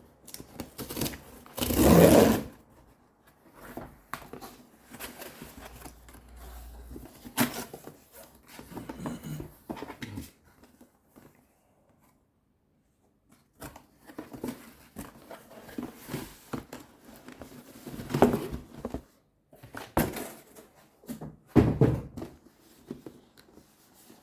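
Sneaker box and its paper wrapping being handled and opened: irregular rustling, scraping and knocks, loudest about two seconds in, with a pause of about two seconds near the middle.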